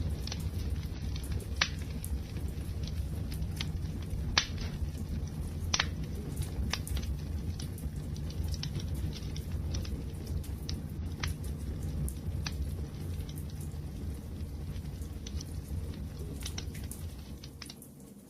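Crackling wood fire: a steady low rumble of burning with irregular sharp pops and crackles, a few standing out loudly in the first six seconds. The sound fades down briefly near the end.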